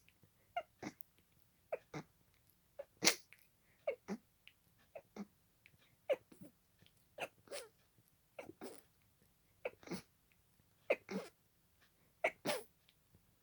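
A person in a sneezing fit, sneezing over and over in quick succession: short, sharp sneezes about two every second, with no let-up.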